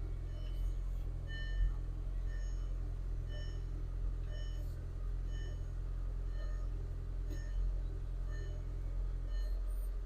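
2003 VW Golf GTI's 1.8-litre turbo four-cylinder idling steadily, now starting and running on a newly replaced fuel pump. A short electronic chime beeps about once a second over it.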